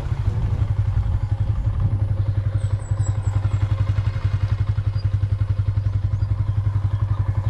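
Small motorcycle engine running steadily at low road speed, a fast, even putter.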